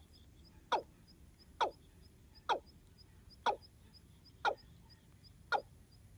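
A bird calling: a sharp, quickly falling note repeated about once a second, evenly spaced. A faint, rapid high ticking runs underneath.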